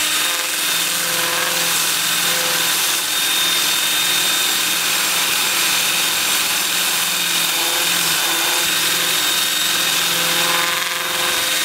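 Cordless drill spinning a power-sanding disc against a red mallee burl bowl: a steady high motor whine over a continuous rasping hiss of abrasive on wood.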